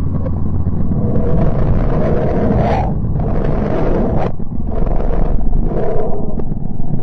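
Sonified space radio recording: a deep rumble with four swelling surges of hiss, each cutting off abruptly, between about one and six seconds in.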